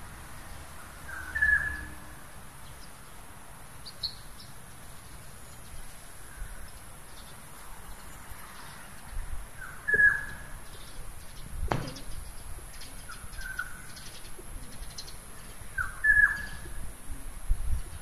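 Short bird chirps, four or five of them spread out, with pigeon wings flapping and rustling in the middle of the stretch while a flock of feral pigeons feeds. There is also a single sharp knock about twelve seconds in.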